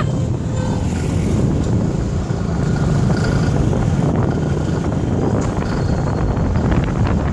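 Steady low rumble of road and engine noise from a moving vehicle, with wind buffeting the microphone.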